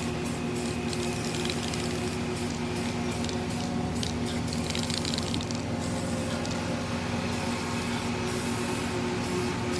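Aerosol can of Rust-Oleum camouflage spray paint hissing as it sprays, in a string of passes with short breaks between them. A steady low hum runs underneath.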